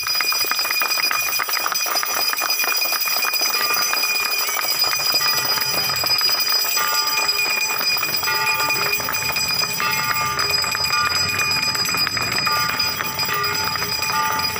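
Bells ringing continuously, with a dense crackling in the first few seconds.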